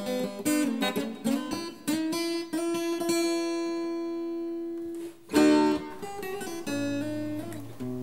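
Acoustic guitar being played: a run of plucked single notes, then one note left ringing for about three seconds, then a sharp, loud chord about five seconds in followed by more chords.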